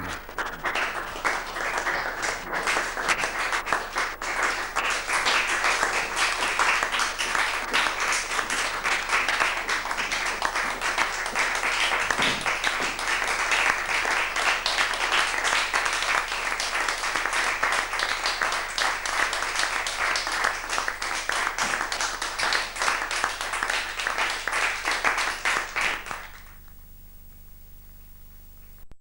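Audience applauding steadily at the close of a stage play, cutting off suddenly about three seconds before the end.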